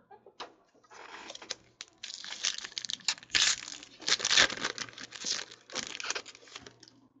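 Foil wrapper of a Panini Prizm trading-card pack crinkling and tearing as it is pulled open by hand.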